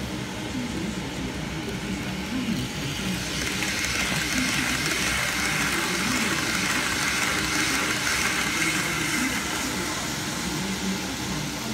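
Model Shinkansen E2 train running along its track, its motor and wheels growing louder as it passes close by a few seconds in, then easing off as it moves away.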